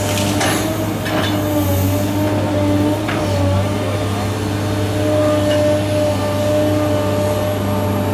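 Caterpillar M318D wheeled excavator's diesel engine running steadily under load, a steady hum with held tones, as its grab works brush and green waste. A few sharp knocks come in the first three seconds.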